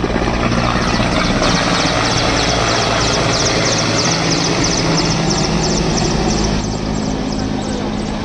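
Mi-17 military transport helicopter flying low overhead: loud turbine and rotor noise with a steady, rhythmic beat from the main rotor blades. The sound grows fainter near the end as the helicopter moves away.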